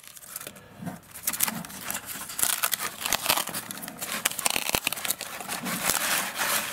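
Packing material being handled in a shipping crate: foil-faced bubble insulation and wrapping crinkling and rustling in irregular crackles. It is sparse for about the first second, then busier.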